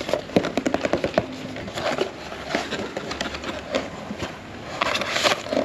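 Blind-box packaging being handled and opened: a quick run of small clicks and taps, then bursts of cardboard and plastic rustling.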